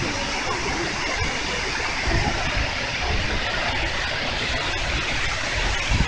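Steady rushing of Shiraito Falls, many thin streams of water pouring down a cliff face, with a short low bump about two seconds in.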